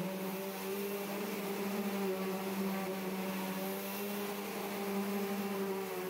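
2005 Bissell CleanView Revolution Deluxe upright vacuum cleaner running steadily while being pushed over a rug: a steady motor hum with an airy hiss on top.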